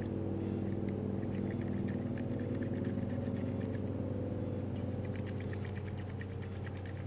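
A knife whittling a green twig, a run of faint quick scraping ticks as shavings come off. Under it runs a steady low engine-like drone.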